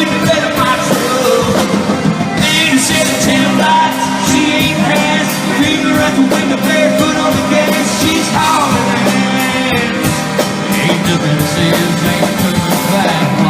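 A band playing a rock and roll song, with a voice singing at times over the instruments.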